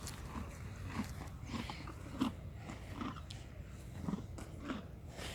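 Horse chewing close by, faint irregular crunches about once a second.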